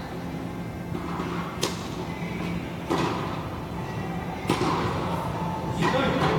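Tennis ball being struck and bouncing on an indoor hard court: four sharp pops about a second and a half apart, echoing in the large hall over a steady low hum.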